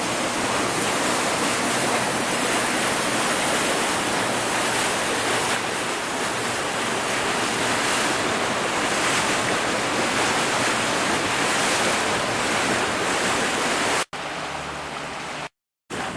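Steady rushing of wind and water around a small boat moving along a river. The sound drops out suddenly twice near the end.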